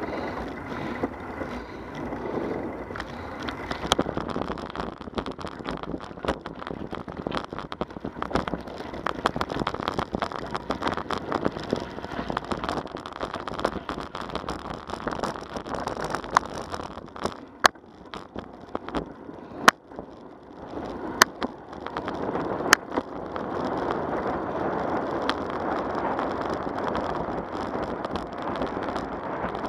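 Bicycle rolling along a trail: tyres and frame rattling over a gravel stretch through the middle, with several sharp knocks from bumps. Near the end it settles back to a smoother, even rolling noise on pavement.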